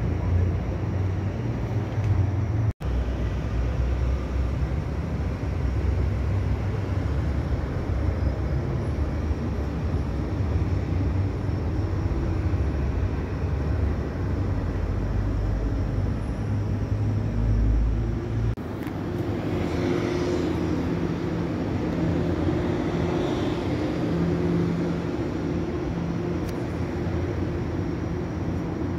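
Steady outdoor city background noise, a low rumble with a faint hum over it. The rumble drops away about eighteen seconds in, leaving a lighter steady hum, and the sound cuts out for an instant near three seconds in.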